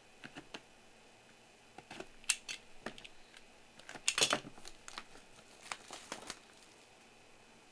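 Shrink-wrap on a sealed trading-card box being slit with a box cutter and torn away, plastic crinkling in scattered bursts, loudest about four seconds in.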